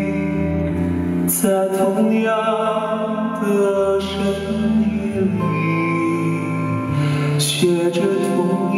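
A male singer singing a ballad in Mandarin live into a handheld microphone, with long held notes, over simple, quiet accompaniment.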